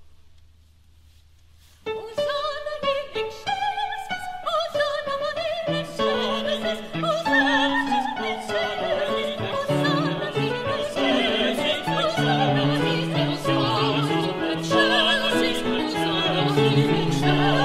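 Choral music: a fading chord dies to a brief near-quiet, then about two seconds in a new piece begins, higher parts first, with low voices joining about six seconds in.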